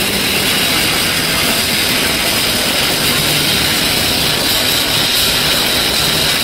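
Grunge band playing loud distorted electric guitar live, a dense, steady wall of noise.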